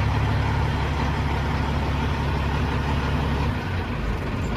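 Caterpillar C15 truck diesel idling steadily at about 700 rpm, then winding down about three and a half seconds in as it is shut off.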